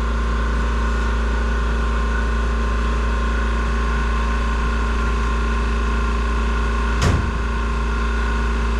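A steady machine hum, a deep drone with several constant tones over it that does not change, and one short knock about seven seconds in.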